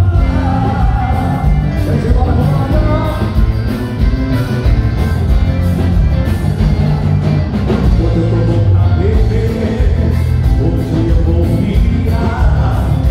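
Live band playing loud, amplified music: a man singing over accordion and electric bass, with a steady beat.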